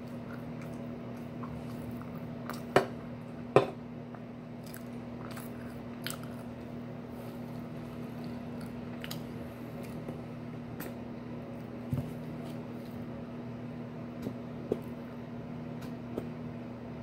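Food-handling sounds as a sandwich is worked on plastic wrap: scattered sharp clicks and crinkles, the loudest two a few seconds in, over a steady low hum.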